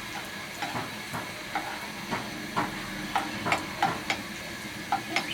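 Chopped ginger and garlic sizzling in hot oil in a pan on high heat, with a spatula knocking and scraping against the pan again and again as it is stirred.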